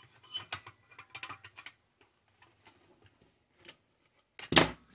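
Small hand tools handled on a wooden tabletop: scattered light clicks and taps, then a single louder knock near the end.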